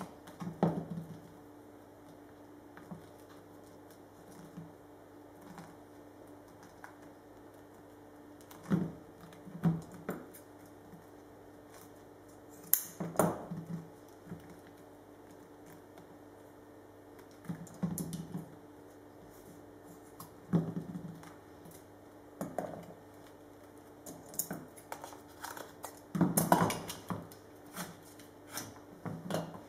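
Hand work at a metal-topped workbench: irregular taps, clicks and rustles as carbon fiber prepreg is handled, pressed and trimmed and tools are picked up and set down, with a cluster of louder clicks near the end. A steady low hum runs underneath.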